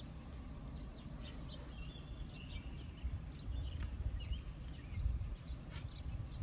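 Close-up eating sounds: chewing, with a plastic spoon clicking and scraping in a foam cup, over a low rumble of mouth and handling noise that grows louder in the second half. Birds chirp faintly about two to four seconds in.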